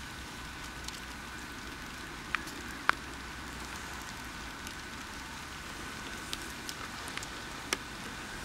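Steady light rain, with scattered single drops ticking sharply on nearby surfaces; a few louder ticks stand out about two and three seconds in and near the end.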